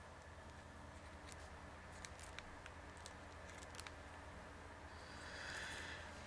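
Quiet room with a steady low hum and a few faint clicks and light taps as a paint-marker tip works on a teabag. A soft breathy hiss comes in near the end.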